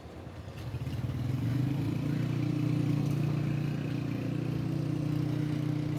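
An engine running steadily, its low hum growing louder over the first two seconds and then holding.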